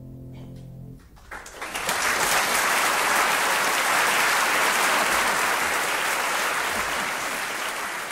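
The final piano chord of the song dies away, and an audience breaks into applause about a second in. The clapping holds steady and begins to fade near the end.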